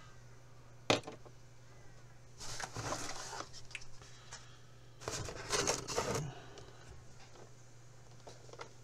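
Packaging being handled in a cardboard box: a sharp knock about a second in, then two spells of rustling and scraping, over a steady low hum.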